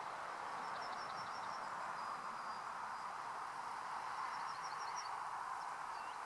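A small songbird singing faintly: a quick run of five or six thin, high notes about half a second in, and another run of six a little after four seconds, over a steady outdoor background hiss.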